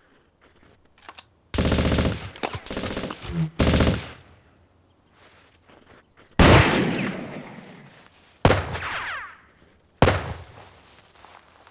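Film gunfire effects: about two and a half seconds of rapid automatic fire in short bursts, then three single loud gunshots, each ringing out in a long fading echo.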